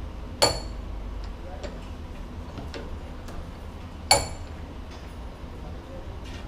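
Two sharp metallic clinks, metal striking metal, about three and a half seconds apart, each with a brief high ring, with a few faint ticks between them, from work on a steel whip chain's link.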